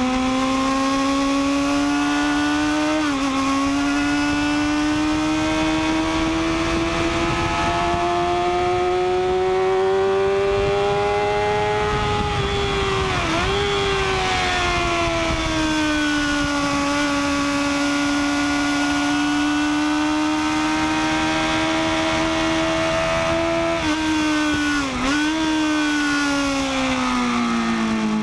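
Sport motorcycle engine at high revs, heard from on the bike. It pulls up steadily through the rev range with a gear change about 3 s in. Near the middle and again near the end it is braked down, with quick rev blips on each downshift.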